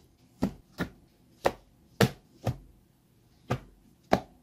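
Books set down one after another onto a growing stack on a wooden desk: seven sharp knocks at uneven intervals, each fading quickly.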